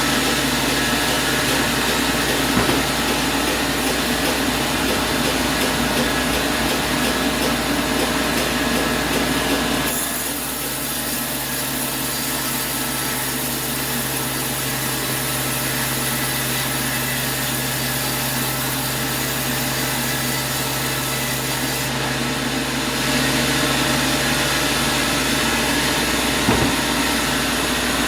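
Sawmill machinery running steadily while a saw cuts wood, a continuous machine hum under the noise of the cut. The sound drops abruptly a little about ten seconds in and comes back louder near twenty-three seconds.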